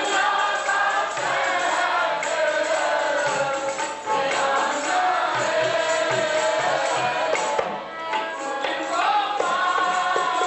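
Sikh kirtan: a woman singing a hymn with harmonium accompaniment, men's voices joining in, and hand percussion keeping a steady beat.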